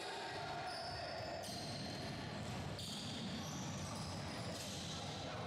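Basketball game in a sports hall: a ball bouncing on the court over the hall's steady background noise.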